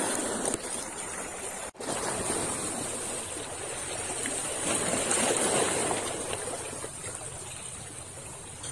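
Small sea waves lapping and washing against the rocks of a rocky shoreline, a steady watery wash that briefly cuts out almost two seconds in.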